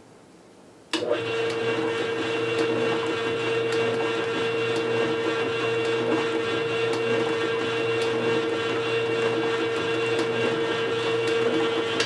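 Kuvings Whole Slow Juicer Chef CS600, a vertical single-auger slow juicer, switched on about a second in and running empty: a steady electric-motor hum with one strong mid-pitched tone, measured at about 63 dB.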